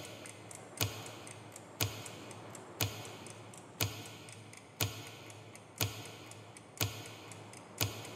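Grandfather clock ticking steadily, one sharp tick each second, over faint steady background noise.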